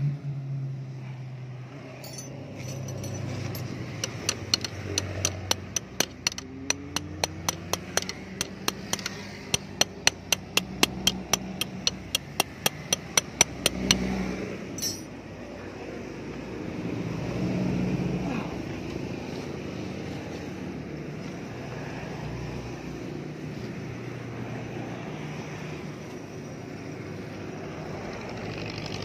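Hand tool tapping metal on a motorcycle's rear sprocket hub: a quick run of sharp metallic clinks, about three a second, which starts a couple of seconds in and stops about halfway through. A low steady background sound continues after the clinks stop.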